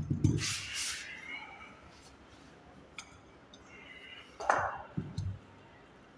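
Home-gym weight equipment being handled: a scrape and low knock at the start, then a sharper knock about 4.5 s in followed by two dull thuds, with faint clinks between.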